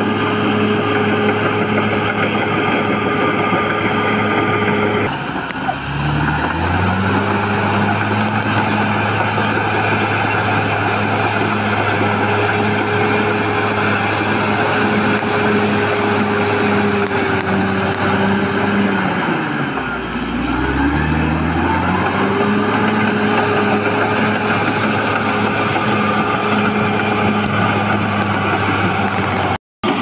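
Caterpillar D6R XL crawler bulldozer's diesel engine running steadily at high revs. Its pitch sags and climbs back twice, about five seconds in and again about twenty seconds in. The sound drops out for a moment just before the end.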